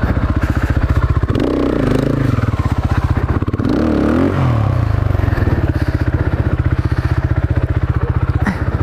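KTM enduro motorcycle engine running at low revs on a muddy trail, with the revs rising and falling briefly twice.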